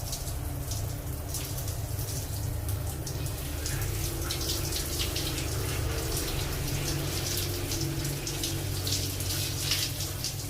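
Water running from a tap, splashing irregularly as something is washed under it.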